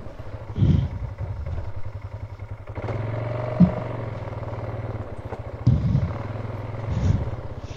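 Vehicle engine running on a rough trail. It picks up about three seconds in and holds a higher steady note, with several dull thumps and knocks from the vehicle jolting over the ground.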